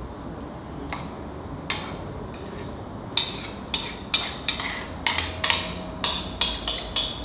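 A metal spoon knocking and clinking against a bowl as thick strained yogurt is scooped out: a dozen or so sharp clicks, coming about twice a second from about three seconds in.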